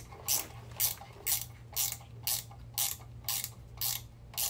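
Ratcheting wrench being worked back and forth on a 9/16 nut at the axle-housing flange, the pawl clicking on each return stroke about twice a second. A low steady hum runs underneath.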